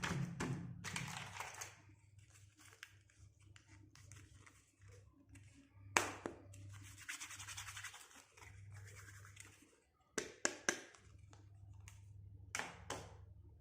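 Small plastic toy pieces and packaging being handled: scratching and rustling, with scattered sharp clicks and taps, one louder click about halfway through and a quick cluster of clicks near the end.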